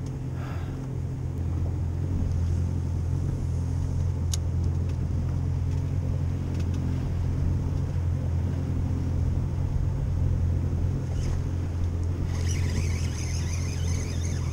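Yamaha 190 FSH jet boat's engine idling with a steady low drone. A single sharp tick comes about four seconds in, and near the end a faint high crackle joins in.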